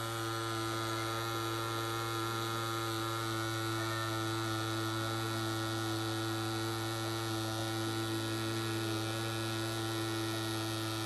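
Rhein EM145 wireless rotary pen tattoo machine running steadily, a constant motor hum, while its needle lines into practice silicone at a slightly raised voltage.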